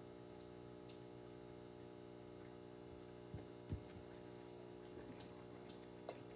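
Near silence: room tone with a steady low hum, broken by two soft thumps about three and a half seconds in and a few faint clicks near the end.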